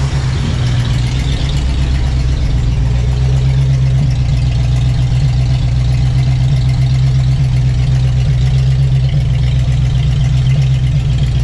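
1965 Ford Mustang GT's V8 idling steadily, freshly started, through a newly installed Magnaflow dual exhaust.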